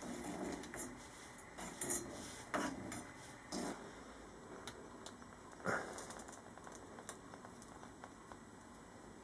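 Faint scattered clicks and light knocks of metal kitchenware being handled: a metal spoon stirring and scraping molten metal in an old saucepan, with the sounds thinning out after about four seconds.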